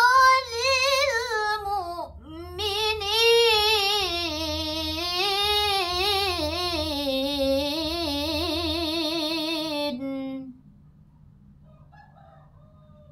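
A girl's solo voice reciting the Quran in melodic tilawah style, drawing out a long ornamented phrase with wavering turns of pitch. She breaks for a breath about two seconds in, and the phrase stops about ten seconds in, leaving only a faint low hum.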